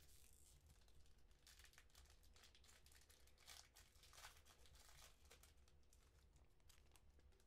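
Faint crinkling and tearing of wrappers, irregular and quick: trading card boxes and packs being torn open by hand.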